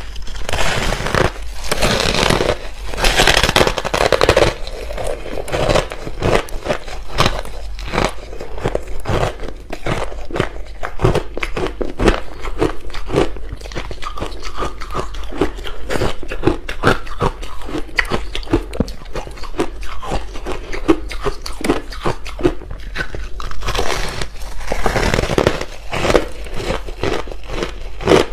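Big bites into chunks of ice coated in matcha and milk powder, then chewing: a dense, continuous run of crunching and cracking ice. It is louder and fuller at the start and again near the end.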